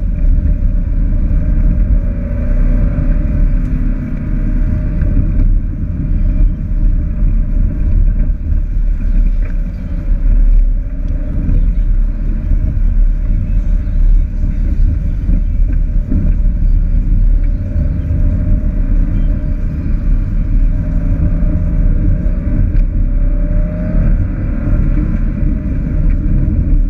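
Steady low rumble inside the cabin of a Subaru Crosstrek driving slowly along a gravel track: the flat-four engine running under light load, mixed with tyre and suspension noise from the loose surface.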